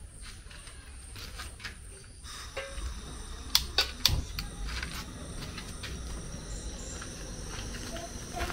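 Three sharp clicks, a little past the middle, at a gas burner on a cooking-gas cylinder as it is being lit, with lighter scattered clicks before them and a faint steady high hiss underneath.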